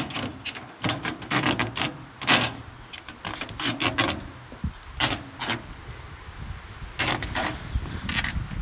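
Trailer safety chains being handled at an ATV's ball hitch: irregular metal clinks and rasping scrapes as they are worked into place.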